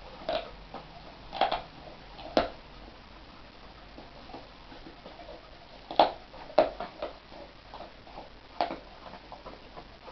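Dog gnawing a raw pork bone: irregular cracks and crunches of teeth on bone, the loudest about six seconds in.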